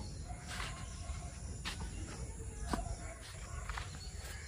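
Quiet outdoor ambience: a steady low rumble and faint hiss, with three faint ticks about a second apart.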